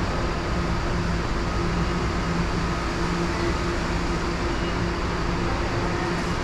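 Steady ambient rumble with a constant low hum and no distinct events.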